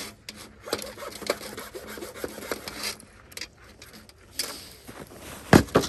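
Handsaw cutting through a wooden board in quick back-and-forth strokes, about three a second, with a pause around three seconds in. Near the end, a loud sharp knock.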